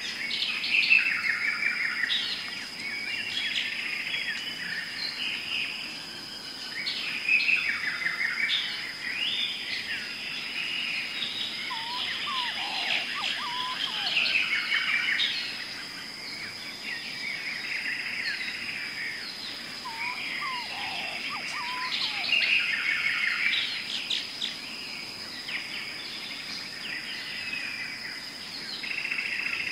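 Dubbed jungle ambience: many birds chirping and calling over a steady high insect drone, with a lower group of whistled calls heard twice, about a third and about two thirds of the way through.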